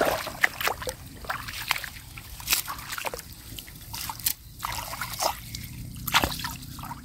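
Hands splashing and sloshing in shallow marsh water while pulling grass off a submerged mesh fish trap: irregular small splashes, drips and trickles.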